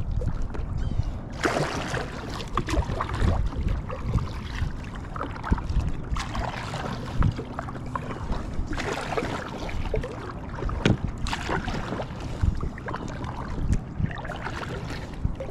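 Splashing and knocking around an inflatable packraft on the water, coming in uneven bursts every few seconds with scattered clicks in between.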